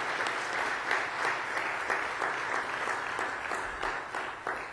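Congregation applauding: dense, steady clapping that thins to a few scattered claps near the end.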